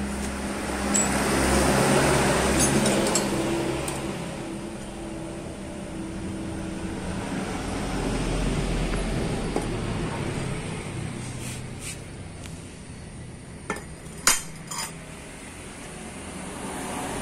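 A motor vehicle's engine passing by, its sound rising and fading, and again more softly a little later. Near the end, a few sharp metal clinks of parts being handled.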